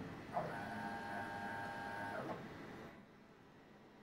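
Stepper motors of a homemade 4-axis CNC router driving an axis in a jog move: a whine that rises in pitch as the move speeds up, holds steady, then drops and stops a little after two seconds in.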